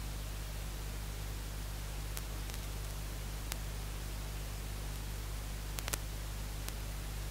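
Steady hiss with a low hum underneath, the recording's own noise, broken by a few faint clicks: one about two seconds in, one at three and a half, a quick pair near six seconds and one more near the end.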